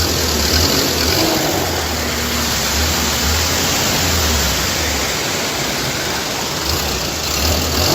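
Loud, steady rushing noise of fast-flowing floodwater, with an uneven low rumble that comes and goes underneath.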